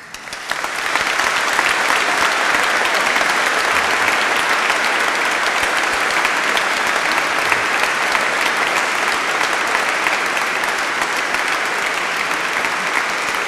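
A large crowd applauding, swelling up over the first second and then holding steady and loud.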